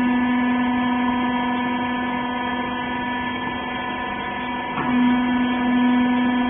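Rag baler's hydraulic pump motor running with a steady electric hum and a strong low tone. The tone briefly falters a little before five seconds in, then comes back stronger.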